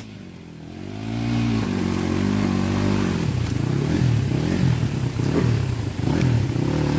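Dirt bike engine running low, then revving up and down repeatedly from about a second in, working under load as the bike is pushed through thick brush.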